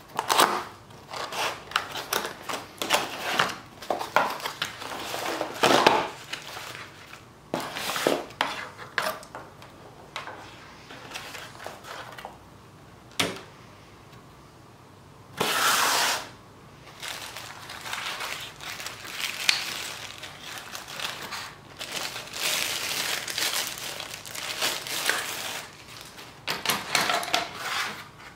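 Cardboard box of an LED under-cabinet light kit being opened and unpacked by hand: irregular rustling and scraping of cardboard, crinkling of a plastic bag, and light bars and cables knocking onto the table. One longer, louder rasp comes about halfway through.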